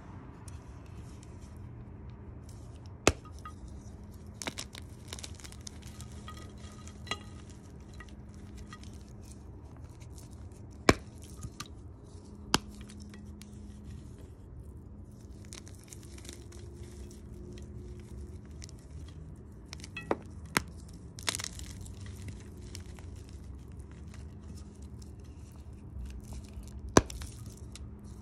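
A soap-soaked block of gym chalk squeezed and crushed by hand on a ceramic plate: soft crumbling and crunching, broken by about ten sharp clicks and snaps as pieces break off or knock against the plate.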